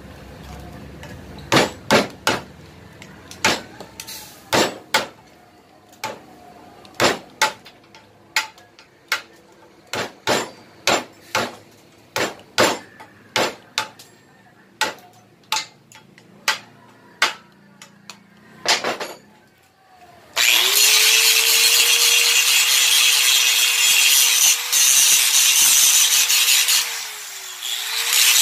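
Repeated sharp metal-on-metal blows, about one a second, as a hammer drives a screwdriver against a motorcycle brake shoe clamped in a vise. About two-thirds of the way through, an angle grinder starts and runs with a loud steady whine, which dips briefly near the end.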